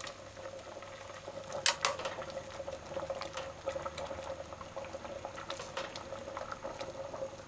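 Water boiling in an aluminium pot of chunks of pumpkin, yam and green banana, bubbling and crackling steadily. A couple of sharp knocks about two seconds in, as a metal cooking spoon turns the food against the pot.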